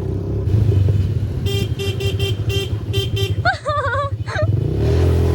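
A motor vehicle's engine running steadily while its horn gives about six short toots in quick succession, followed by a brief voice.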